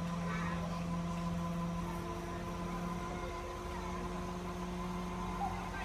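Mobile crane's engine running steadily with a low hum while it holds a suspended load, the hum dipping briefly about three seconds in and then resuming at a slightly higher pitch.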